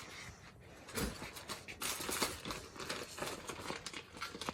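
Clothing being handled: rustling and crinkling with scattered light clicks and taps.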